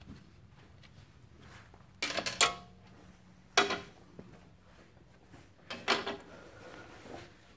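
Metal hand tools clanking and rattling as they are handled and set down, in three short bursts: about two seconds in, at three and a half seconds, and near six seconds, each with a brief metallic ring.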